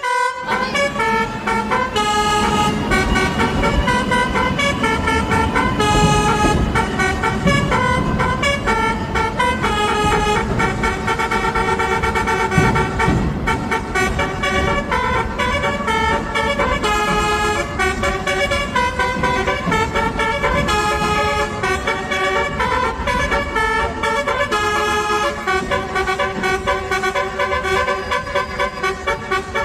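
A loud tune of horn-like pitched notes, changing several times a second in phrases that repeat about every four seconds, over a low rumble.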